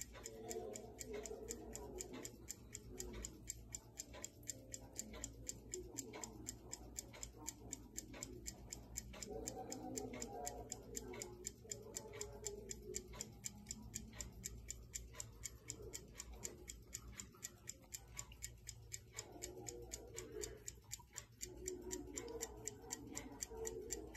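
1960 Westclox Bull's Eye pocket watch movement ticking steadily with its back open, the rapid, even ticks of its pin-lever escapement as the balance wheel swings.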